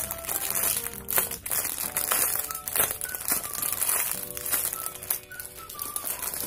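Clear plastic packaging crinkling as a squishy is handled in its bag, over background music with a simple melody.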